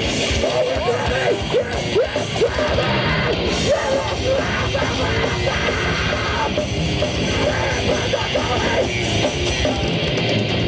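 A heavy metal band playing live: distorted guitars over fast, dense drumming, with a shouted vocal.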